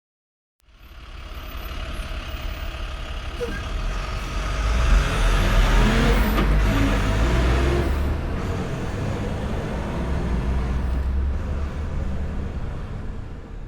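Large diesel bus engine running with a low, steady drone. It starts up under a second in and grows louder over the first few seconds.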